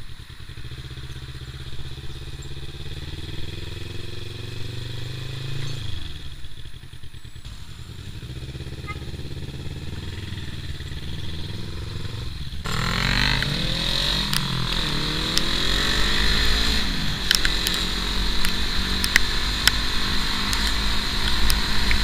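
Motorcycle engine running while riding, its pitch rising and falling with the throttle. About halfway through, a louder rushing noise joins it and the whole sound grows louder toward the end.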